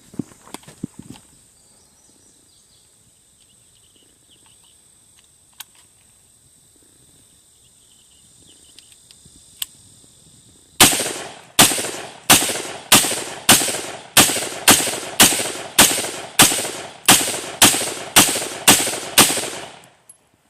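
Smith & Wesson M&P AR-style rifle with a 16-inch barrel firing .223 55-grain FMJ rounds. A string of about sixteen shots comes in steady quick succession, roughly one every 0.6 s. It starts about halfway in, after a quiet stretch with a few small clicks.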